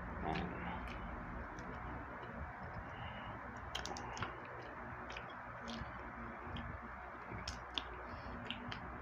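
Scattered sharp clicks and small cracks as cooked crab shells are picked apart by hand while eating, over a steady low hiss.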